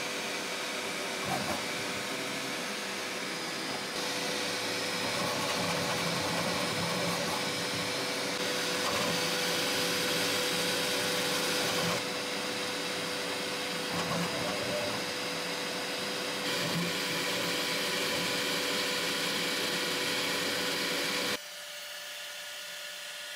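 Bambu Lab P1S 3D printer running a print, its fans and motors giving a steady whir with a constant hum tone. About 21 seconds in the sound drops to a quieter hum.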